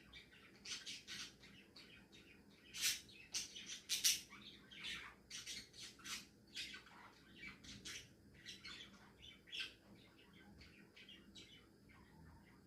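Budgerigars chattering while they nap: a quick run of short chirps and squawks, loudest a few seconds in and thinning out near the end.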